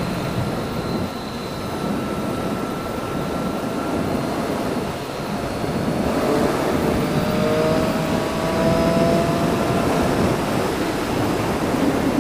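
Motorcycle on the move: wind rush over the helmet microphone with the engine running underneath, its note rising slowly from about halfway through as the bike speeds up.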